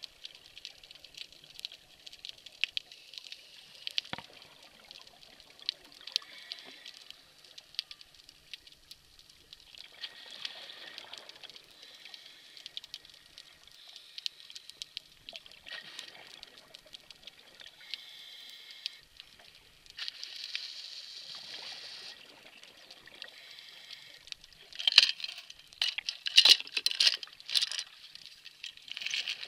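Underwater sound from a scuba dive: exhaled regulator bubbles rushing in bursts every few seconds, loudest in a cluster near the end, over a steady hiss dotted with faint crackling clicks.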